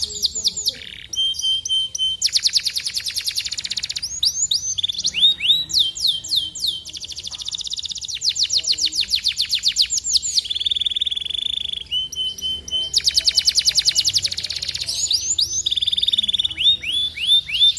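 Domestic canary singing a long, fast song of repeated phrases: rapid trills of sweeping high notes, each run lasting a second or two before switching to another, with a steady buzzing roll about two-thirds of the way through.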